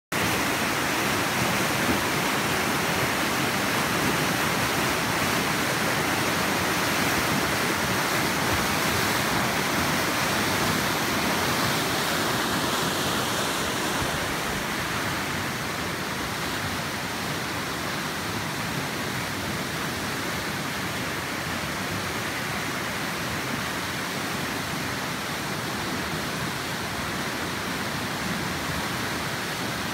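A river in flood: fast brown floodwater rushing and churning over rocks in a steady wash of noise. It turns a little quieter about halfway through.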